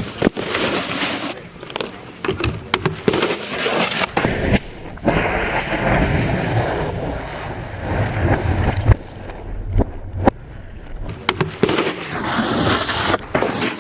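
Snowboards sliding and scraping along terrain-park rails and boxes, broken by sharp clacks and knocks as boards hit the features.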